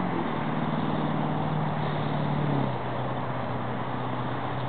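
A motor vehicle engine humming at a steady pitch that drops in two steps, about a quarter second in and again a little past halfway, over a steady hiss of background noise.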